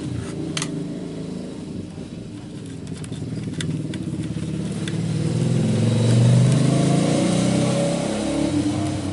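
A motor vehicle's engine running past, growing louder to a peak about six seconds in and then easing off, with a few light clicks in the first seconds.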